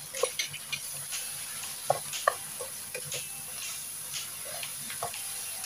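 Udon noodles, cabbage and beef sizzling in a non-stick wok while a spatula tosses them, with irregular light knocks and scrapes of the spatula against the pan.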